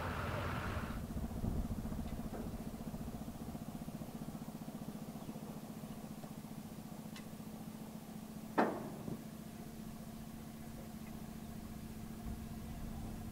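Engine idling steadily with a low, even hum. About eight and a half seconds in comes one short, sharp sound that falls quickly in pitch.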